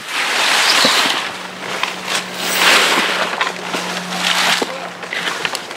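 Push broom bristles scraping across a camper trailer's roof, sweeping off dry leaves in three long swishes.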